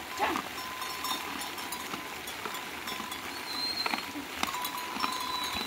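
A herd of pigs foraging and rooting through wet vegetation, with scattered small clicks and rustles. A short falling squeal comes about a quarter of a second in.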